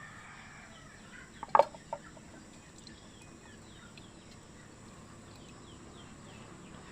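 Chickens calling faintly, with many short, high, falling chirps. A short sharp knock sounds about a second and a half in, with a smaller one just after.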